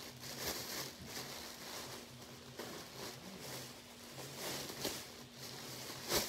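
Rustling of clothes being handled, in soft irregular bursts, over a faint steady low hum.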